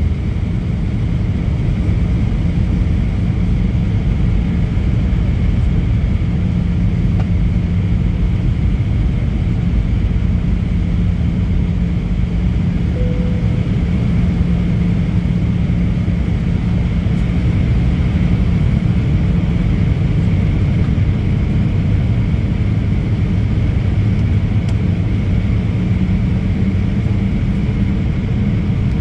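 Cabin noise inside an Airbus A320 on approach: a steady jet-engine drone and airflow rumble, with a low hum and a faint high whine held throughout.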